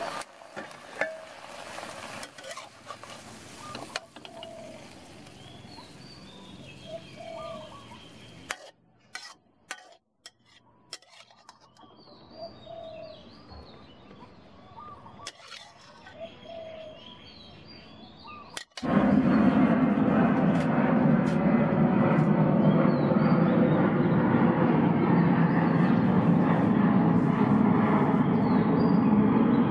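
Vegetables sizzling in a wok under a metal spatula for the first few seconds. Then quieter, with birds chirping and a few clicks. About two-thirds of the way through, a loud steady rushing noise comes in suddenly and takes over.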